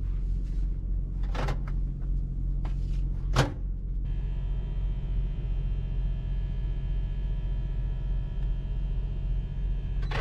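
A few clicks and knocks, the loudest a sharp clack about three and a half seconds in, then a small microwave oven starts about four seconds in and runs with a steady electrical hum of several even tones. Under it all is the low steady drone of the truck.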